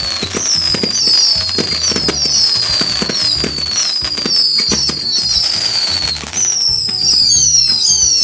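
Ground firework going off: a rapid series of high whistles, each falling in pitch, about two a second, over crackling pops.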